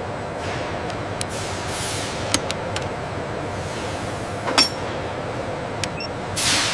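Factory floor ambience: a steady machinery hum with scattered sharp metallic clicks and clinks, the loudest about two-thirds of the way in, and a swelling hiss of air near the end.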